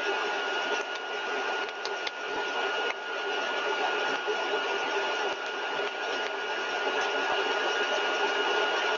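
Lab compressor rig, a rotor-and-stator stage, running steadily at 75% of design speed (5400 rpm). It makes a steady rush of air with a high whine held at one pitch.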